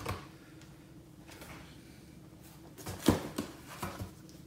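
Books being pulled out of a cardboard box and handled: faint sliding and rustling, with a few knocks of books against the box, the sharpest about three seconds in.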